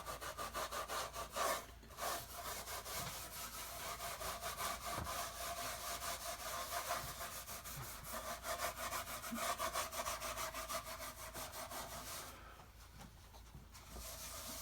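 Wax being rubbed briskly into the dry, worn wood of an old wooden toolbox, a fast run of scratchy back-and-forth strokes. The strokes break off briefly about two seconds in and pause for a second or so near the end. The wood is soaking up a lot of wax because the wax is filling its gaps and cracks.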